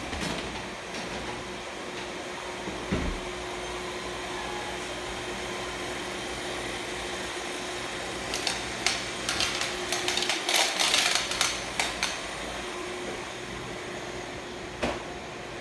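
Steady background hum, with a flurry of sharp clicking and clattering in the middle: beagle puppies' claws scrabbling on a hard floor as they play. A single knock comes near the end.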